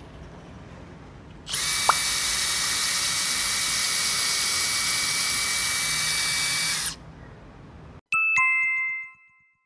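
Cordless drill running at a steady speed for about five seconds in a drill guide, boring into plywood with the bit tip set on the wood before it starts, then stopping. About a second later comes a quick two-note chime.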